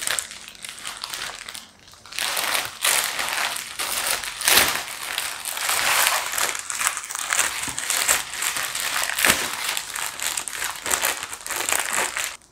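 Plastic courier mailer bag crinkling and rustling as it is pulled open by hand, with sharper crackles now and then and a short lull about two seconds in.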